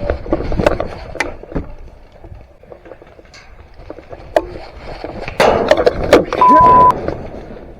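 Rustling movement with scattered sharp clicks and snaps, a loud, noisy stretch a little past halfway, then one steady, high, half-second beep.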